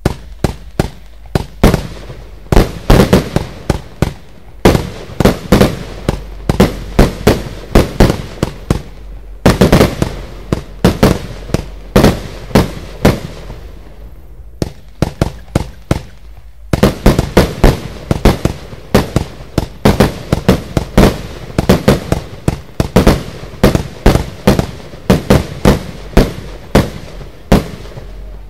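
Lesli Brocade Blaster firework firing a rapid, irregular series of sharp bangs, several a second, with short lulls about a third of the way through and again around the middle.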